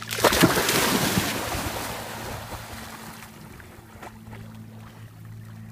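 Boxer dog plunging from the shallows into lake water: a burst of loud splashing about a quarter second in, fading over the next two seconds into quieter water sounds as it swims off.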